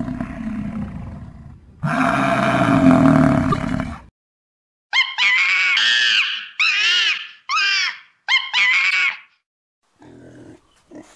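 A sequence of animal calls: a loud, rough, roar-like call for the first four seconds, then after a short silence five short calls in quick succession, each rising and falling in pitch.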